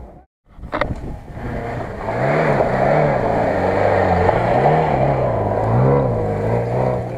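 A 4x4 SUV's engine revving up and down repeatedly under load as it climbs a sandy slope, with spinning wheels throwing sand. The engine gets loud about two seconds in.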